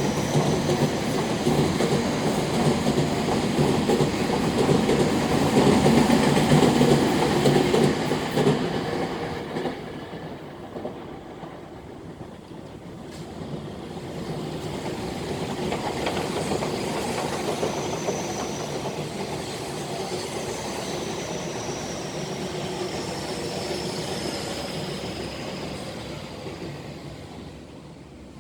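Electric commuter train running on the Tobu Skytree Line, wheels clattering over the rail joints. It is loud for the first eight seconds or so, then runs on more quietly with a faint high whine, fading near the end.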